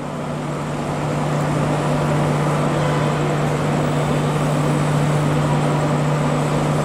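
WAP-4 electric locomotive hauling an express train as it approaches along the platform. A steady low hum sits over the train's running noise, growing louder over the first couple of seconds and then holding.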